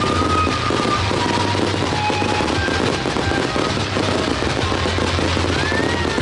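Fireworks bursting and crackling in rapid, continuous succession, mixed with loud music that has a steady bass.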